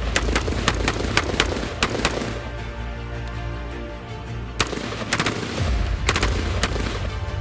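Colt M4 carbine in 5.56x45mm NATO firing a quick string of single shots, about four a second for the first two seconds. After a pause, several more shots follow from about four and a half seconds in.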